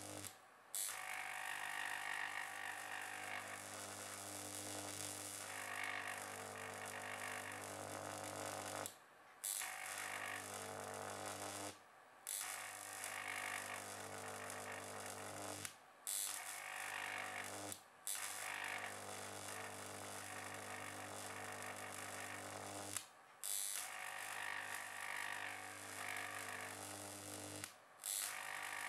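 Carbon arc between two carbon rods, powered by an HID lamp ballast set to 162 watts, burning with a steady buzz and hiss. Several times the arc drops out and the sound cuts off for a fraction of a second, then it strikes again.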